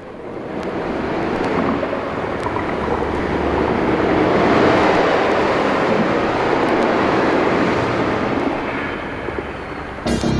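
Sea surf: a rushing wash of waves that swells over several seconds and then fades. Music cuts in suddenly at the very end.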